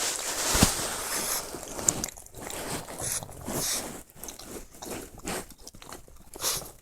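A pug snoring and snorting in a string of short raspy breaths. A sharp click comes about half a second in.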